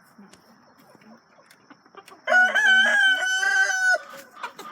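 A rooster crows once, a single loud crow lasting about a second and a half near the middle, over faint clucking of chickens.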